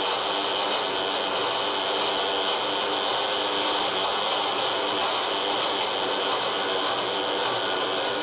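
Harsh noise music played live on electronic devices: a dense, unbroken wall of hiss and distortion, brightest in a high band, with faint steady hums beneath it. There is no rhythm and no change in level.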